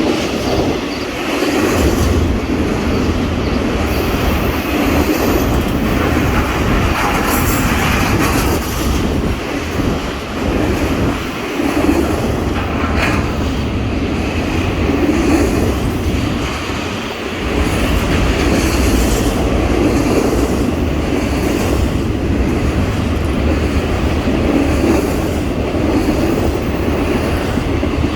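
A train rolling past on the line, its steel wheels running on the rails with a loud, continuous rumble for the whole stretch, easing only briefly a few times.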